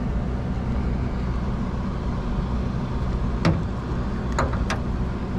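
A steady low motor hum, like an idling engine or running machinery, with three sharp clicks: one about three and a half seconds in and two close together about a second later.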